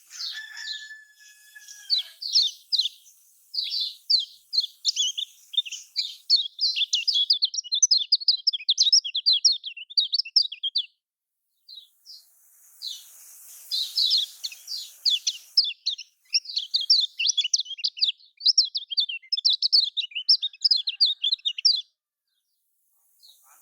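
Kecial kuning, a Lombok white-eye, singing a fast, chattering song of rapid high chirps in two long runs with a short break in the middle, the kind of song used as a lure to get silent kecial to start singing.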